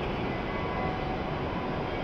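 Steady hum and hiss of E7 series Shinkansen trains standing idle, with faint steady tones running through it.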